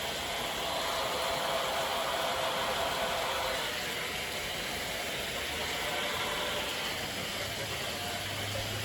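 Heavy rain pouring steadily, a constant rushing hiss.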